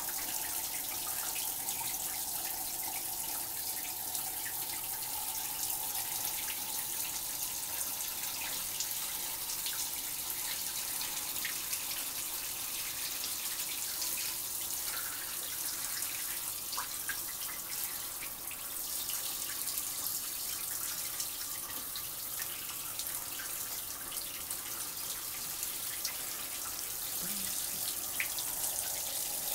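Hand-held shower head spraying water steadily, with scattered small drips and splashes.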